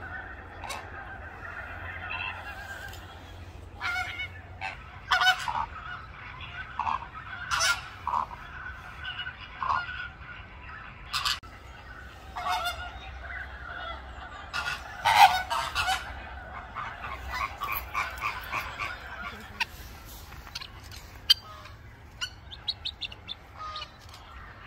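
A flock of flamingos honking: many short calls overlapping and following one another, the loudest bunch about halfway through.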